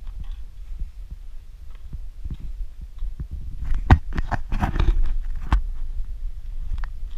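Low rumble and irregular thumps on a moving camera's microphone, from wind and handling. About four seconds in comes a burst of sharp knocks and crunching that lasts a second and a half.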